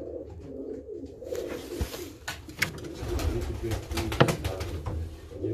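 Baku fighting pigeons cooing, a low rolling coo, with a few sharp clicks, the loudest about four seconds in.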